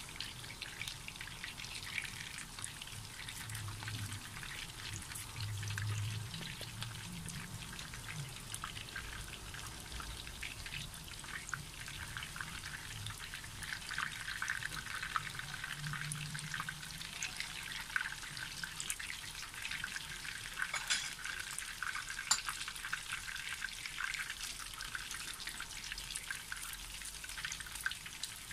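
Chicken pieces crackling in hot oil in a frying pan during their second fry to crisp them: a steady crackle of many small pops and spits, with a few sharper pops about three quarters of the way through.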